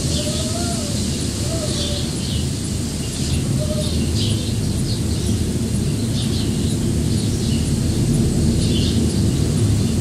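Small birds chirping repeatedly, with a pigeon giving a few low cooing calls in the first few seconds, over a steady low rumble of wind buffeting the microphone.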